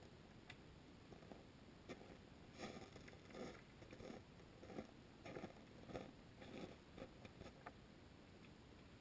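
Faint, irregular taps and clicks, picked up underwater by the camera in its housing. They come in a loose cluster from about two seconds in until near the end.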